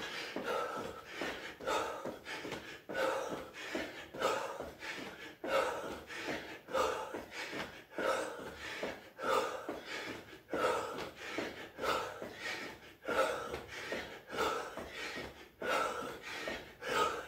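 A man breathing hard and rhythmically while doing jumping jacks, a heavy breath about every second and a quarter, with the landings of his trainers on the carpet falling in the same rhythm.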